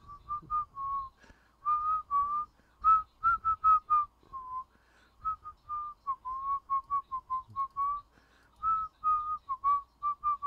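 A man whistling a tune in quick, short notes, phrase after phrase with brief pauses between.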